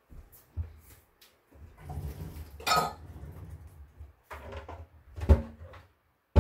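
Kitchen utensils and dishes clattering as someone rummages off-camera for measuring cups: a run of clinks and knocks, with one sharp loud knock about five seconds in.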